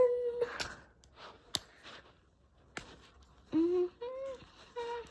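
A voice holds a sung note that trails off about half a second in. Next come a few soft clicks of packaging being handled, and from about three and a half seconds a string of short hummed notes.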